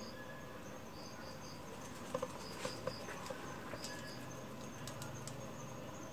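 Faint, high chirping of insects, short notes repeating in pairs and threes. A handful of sharp clicks or taps come between about two and five seconds in.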